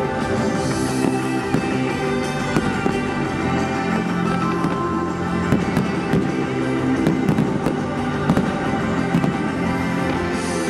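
Fireworks going off, many sharp bangs and crackles that come thickest in the second half, over loud anime-song music playing for the show.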